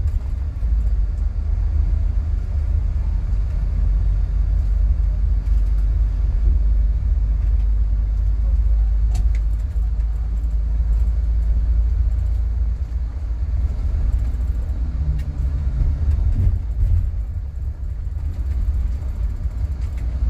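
Steady low rumble of a double-decker coach under way, heard from inside its passenger cabin, with a light click about nine seconds in.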